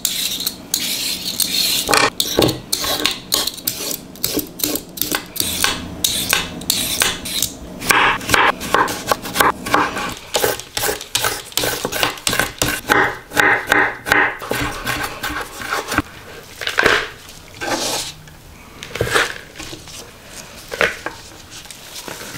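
A hand vegetable peeler scraping along carrots in quick repeated strokes, first peeling off the skin and then shredding the carrots into julienne strips with a julienne peeler. The strokes thin out to a few scattered ones in the last several seconds.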